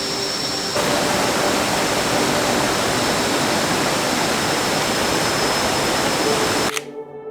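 Water rushing down a waterfall, a steady dense rush that jumps louder about a second in and cuts off abruptly near the end, giving way to soft music with held notes.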